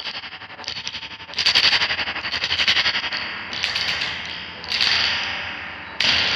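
Real spring reverb tank inside a White Whale reverb/tremolo pedal crashing as the pedal is jostled and tilted, heard through the amp. About six splashy metallic bursts come a second or so apart, each dying away, with a fast pulsing throughout.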